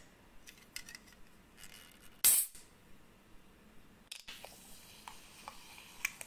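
Fingernails clicking and picking at the ring-pull of an aluminium can of Pepsi. About two seconds in comes a short, loud hiss as the can is cracked open and the gas escapes. A few faint nail clicks on the can follow.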